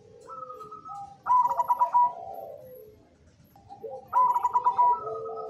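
Zebra dove (perkutut) cooing, two song phrases about three seconds apart. Each has a fast stuttering run of notes as its loudest part and trails off into lower, falling coos.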